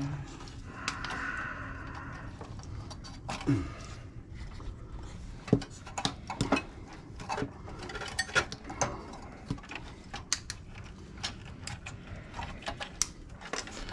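Small metal scrap parts and hand tools clinking and knocking in irregular taps while an electronic device is taken apart for scrap.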